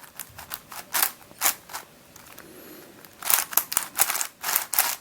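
Plastic layers of a Witeden 4x4x3 Mixup puzzle cube being turned by hand: a series of sharp clacks and clicks, rough and catchy. They pause about two seconds in, then a quick flurry of turns comes near the end.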